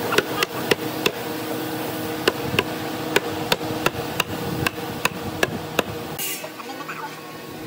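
Hammer blows, about a dozen sharp knocks at uneven intervals, over a steady machine hum in the workshop.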